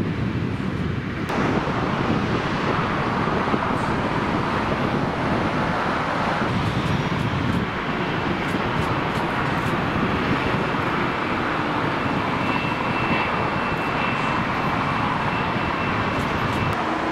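Boeing 747 jet engines running, a steady wide roar that shifts abruptly about a second in, with a faint high whistle over the last few seconds.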